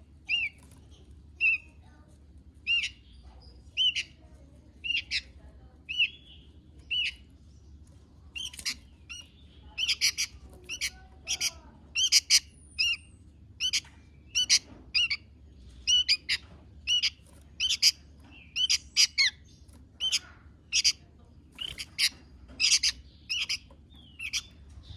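Sooty-headed bulbul (kutilang) calling repeatedly: short, sharp calls about once a second at first, then coming faster in clusters of two and three notes from about ten seconds in.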